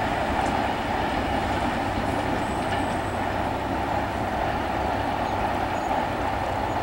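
Freight train's flat wagons and container wagons rolling past, a steady rumble of steel wheels on rail as the tail of the train moves away.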